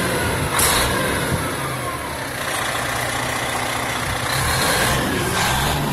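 Diesel engine of a fire department aerial ladder truck running as the truck starts to pull away, a steady low rumble with two short bursts of hiss, about half a second in and near the end.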